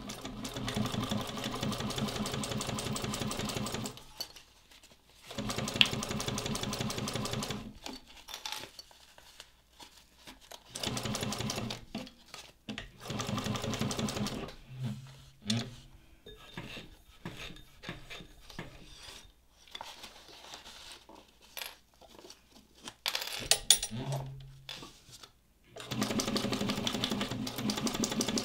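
Juki DNU-1541 industrial walking-foot sewing machine stitching through leather and fabric layers in runs of a few seconds, with rapid, even needle strokes, stopping and starting about half a dozen times.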